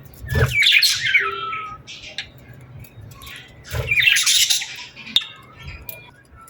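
Birds calling: two loud, harsh calls with falling notes, one just after the start and another about four seconds in, with faint scattered chirps between them.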